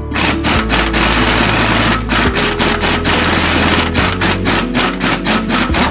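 Impact wrench hammering on the front wheel hub of an Isuzu D-Max: two long runs of about two seconds each, then a string of short trigger bursts, several a second.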